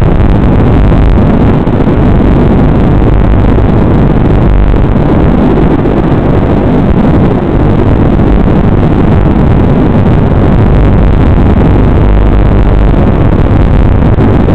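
FPV racing quadcopter's motors heard through the onboard microphone of its analog video transmitter: a loud, constant, distorted buzz with wind noise, cut off above the narrow audio band of the analog link.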